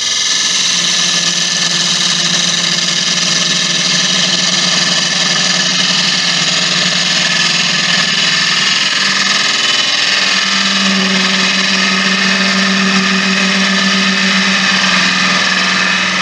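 Wood lathe running while a gouge takes a light finish cut on spinning spalted beech: a loud, steady hiss of the cut over the lathe's hum. The finish cut cleans up soft, punky spalted wood. The hum grows stronger about ten seconds in, and the sound starts and stops abruptly.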